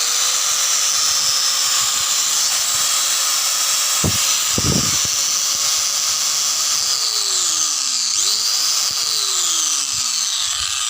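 Electric hand grinder running at full speed with a smooth, even whine and no rough growl: the motor sounds normal again after repair. About seven seconds in it is switched off and winds down, is switched on briefly, then winds down again; a couple of low knocks come about four seconds in.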